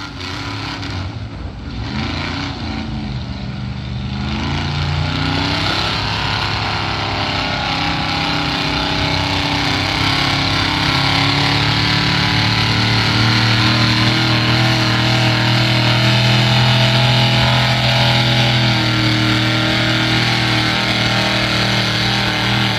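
Street-class gas pickup truck's engine working hard under load as it pulls a weight-transfer sled. The revs rise and fall in the first few seconds, then hold high and steady, growing louder for the rest of the pull.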